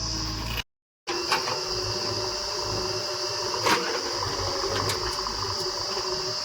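Steady high chirring of crickets over a low engine rumble, with a couple of sharp knocks. The sound cuts out completely for a split second near the start.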